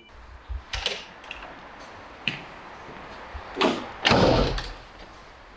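Wooden door being handled: a few separate sharp clicks and knocks, then a louder clatter lasting about half a second, about four seconds in.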